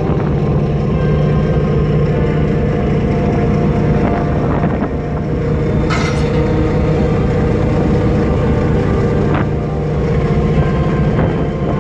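Purse seine fishing boat's engine and deck machinery running steadily, a loud low drone, with a few sharp knocks over it.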